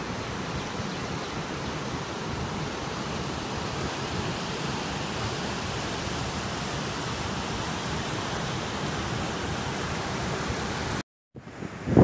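Steady, even rushing of water from a waterfall and river. It cuts off abruptly near the end.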